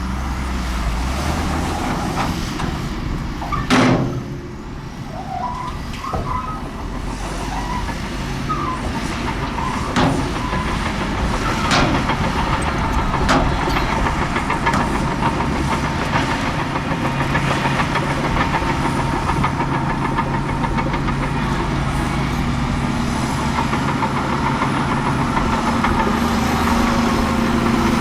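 Heavy diesel earthmoving machinery running steadily, with a few sharp metallic clanks, the loudest about four seconds in.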